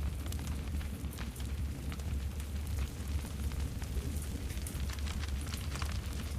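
Campfire burning, with frequent sharp crackles and pops of the burning wood over a steady low rumble.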